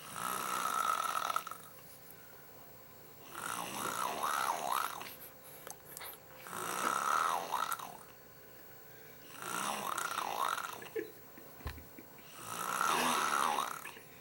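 A young girl snoring loudly, five snores about three seconds apart. Each snore carries a wavering high pitch that dips and rises several times.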